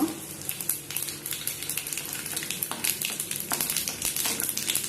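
Mustard seeds, urad dal and chana dal spluttering in hot oil for tempering: an irregular run of sharp pops and crackles over a frying hiss.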